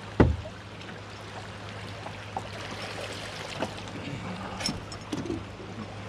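River current rushing and lapping against an aluminium jon boat, with a steady low hum under it. A sharp knock comes just after the start, and a few lighter clicks follow later.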